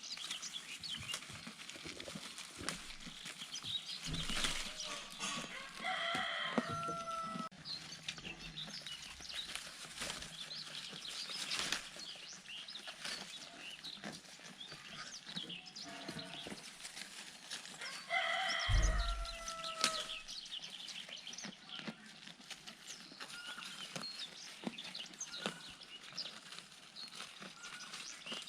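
Chickens in a farmyard: a rooster-like call rings out twice, about twelve seconds apart, over steady chirping from small birds. There is a short low thud just as the second call begins.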